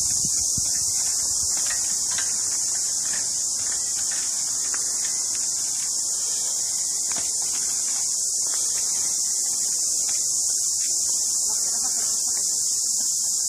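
Steady, high-pitched insect chorus with no change in level, filling the background.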